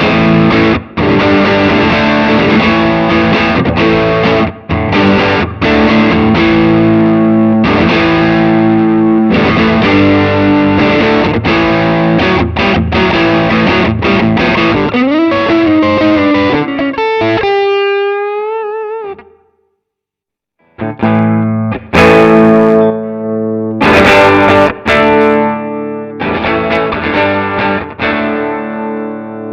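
Distorted electric guitar, a Fender Stratocaster played through a Nux MG300 amp model, strumming chord riffs with short stops. Midway a note is bent up and held with wide vibrato, then cut off. After a short break the chords return and the last one rings out and fades.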